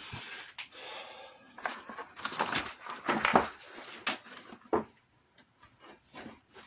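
Rummaging through workshop supplies by hand: irregular rustling and handling noises with a few sharp knocks, loudest around three seconds in and quieter after about five seconds.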